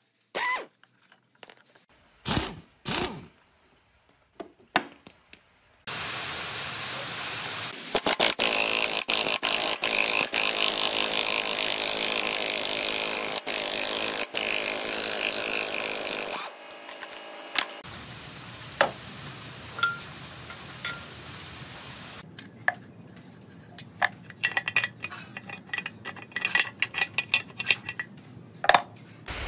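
Power-tool work on a diesel engine's crankshaft: a few short bursts from an impact wrench on the crankshaft nut, then a long steady run of power-tool noise lasting about ten seconds, then scattered clicks and knocks of metal parts and tools.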